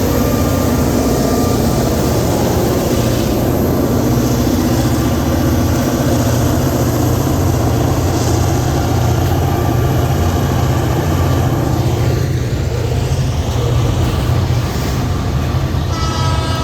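EMD diesel freight locomotives running under power, a steady heavy engine rumble. Near the end the locomotive's air horn begins to sound.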